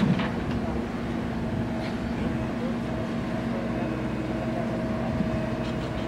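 Diesel engines of a JCB 3DX backhoe loader and a tractor running steadily as the backhoe loads mud, with a brief thud right at the start.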